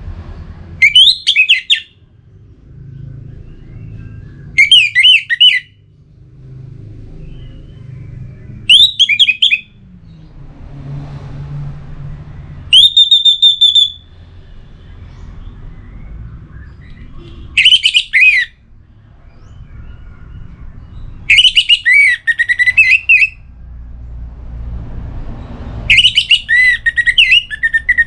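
Orange-headed thrush singing its territorial song that calls out to rivals: seven loud, short phrases of quick, varied whistles, about one every four seconds, with a low background rumble between them.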